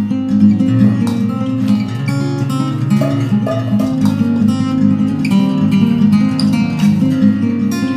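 Background music: an acoustic guitar piece, plucked and strummed at a steady tempo.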